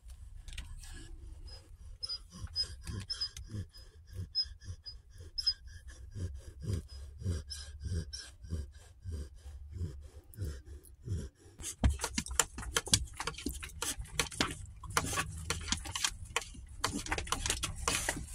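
A gravely ill dog breathing heavily in quick, regular breaths about twice a second. About twelve seconds in this gives way to louder rustling and handling noise.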